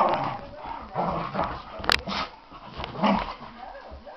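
Norwegian Elkhounds, an old dog and a puppy, playing: several short yips and barks, with a sharp click about halfway through.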